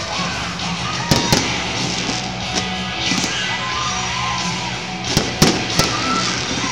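Fireworks display: sharp bangs of shells bursting, two about a second in and three more close together near the end, over steady background music.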